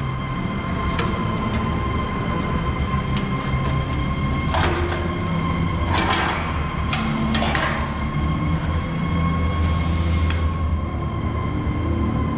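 Gemco V-blender vacuum dryer running on test: a steady low rumble from its drive with a constant whine over it. Three short rushing hisses come about a second and a half apart in the middle.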